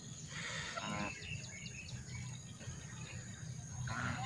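White domestic geese giving short calls, one about a second in and another near the end, over a steady high insect whine and faint chirps.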